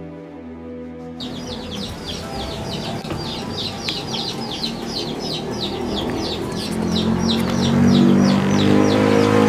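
Title music stops about a second in; then a bird gives a rapid, even run of short high chirps, about three or four a second. A lower, steadier sound grows louder under it near the end.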